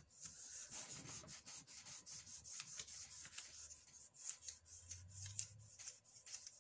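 A hand rubbing a sheet of paper back and forth over a slab of polymer clay to burnish it flat: a quick run of soft, papery rubbing strokes.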